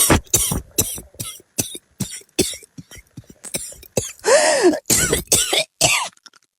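A long fit of coughing: a rapid series of short, sharp coughs, about three a second, then from about four seconds in a few louder, longer coughs with the voice sounding in them.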